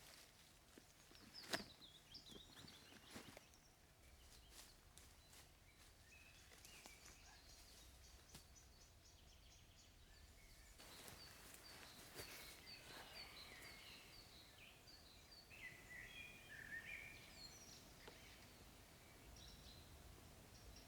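Faint forest ambience with small birds chirping in short, repeated calls, and a few sharp clicks or snaps, the loudest about a second and a half in.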